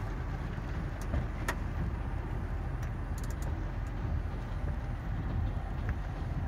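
Belanger in-bay automatic car wash running, heard from inside the car as a steady low rumble of spray and machinery, with a few light ticks about one and three seconds in.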